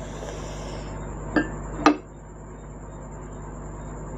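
Two sharp clinks of tableware, about half a second apart, as a meal is started, over a steady low hum.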